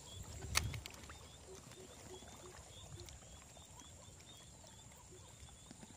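Faint wetland ambience: short croaking calls a few times a second, typical of frogs, over regular higher chirps and a steady high insect hum. A single sharp click comes about half a second in.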